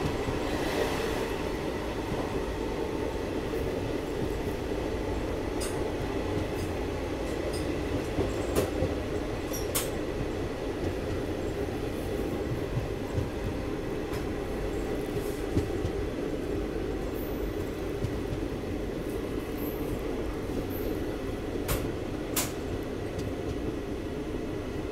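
Passenger train running at speed, heard from the side of the moving coach: a steady rumble of wheels on rail, with a few sharp clicks over it.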